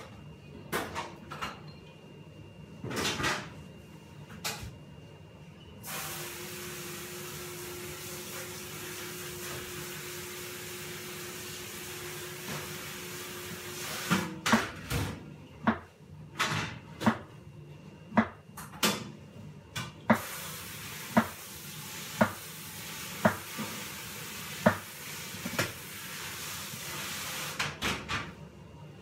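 Chef's knife cutting fruit on a plastic cutting board: sharp knocks roughly once a second through the second half. A steady hiss runs underneath for long stretches.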